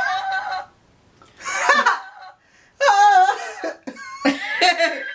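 People laughing hard in several loud bursts, with short breaks between them.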